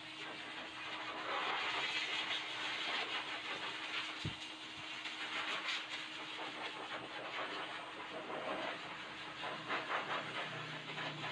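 Pet blow dryer running with a steady motor hum, its rushing air swelling and fading as it moves. A brief low thump about four seconds in.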